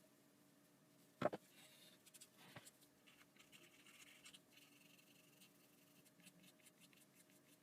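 Faint scratching of a sanding stick rubbed over a small plastic model-kit part, cleaning up the gate marks. A sharp click about a second in, and a smaller one about a second later.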